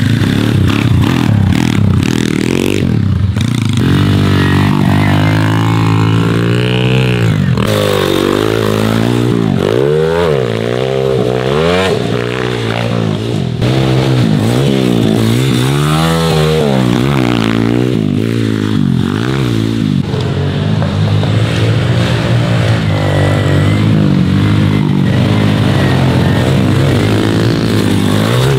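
MRF 140 pit bikes' single-cylinder four-stroke engines ridden hard on a dirt trail. The revs climb and drop again and again, every second or two, with the throttle going on and off over the bumps and climbs.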